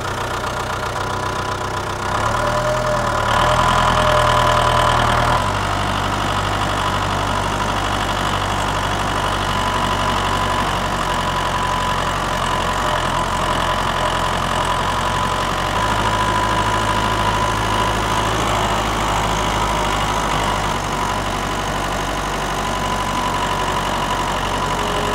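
Tractor engine running steadily under load. It grows louder for a few seconds early on and its low note shifts again about two-thirds of the way through.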